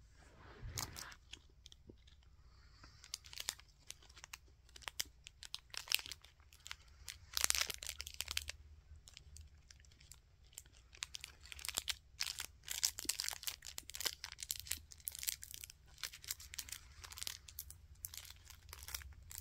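A chocolate bonbon's wrapper crinkling and tearing as it is unwrapped by hand, in many short irregular crackles.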